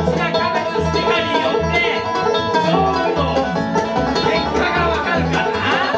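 Bluegrass band playing an up-tempo tune: quick banjo picking over guitar, with a steady, regular bass line beneath.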